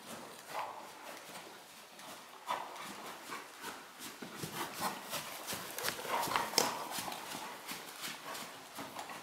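Hoofbeats of a trotting horse on soft sand arena footing: a run of irregular dull thuds and clicks.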